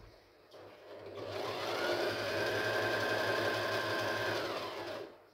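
Portable electric sewing machine stitching fabric. Its motor winds up to speed over the first second or so, runs steadily with a high whine, then stops about five seconds in.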